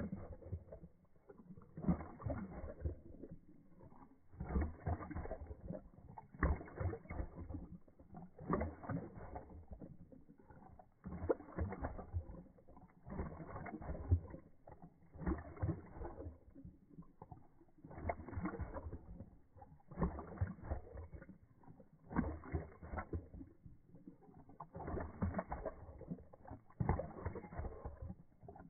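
A poodle lapping water from a plastic bowl, played back in slow motion so each lap becomes a long, deep slosh, about one every two seconds.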